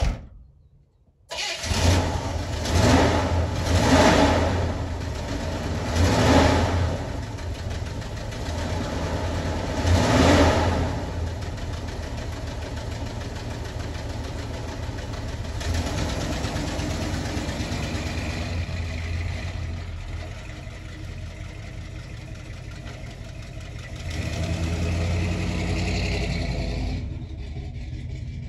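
1973 Chevy K20 pickup's engine cranking and catching about a second in, then revved in several throttle blips before settling to a steadier run; near the end it gets louder as the truck pulls away, then drops off. A short thump at the very start, just before the engine, is the driver's door shutting.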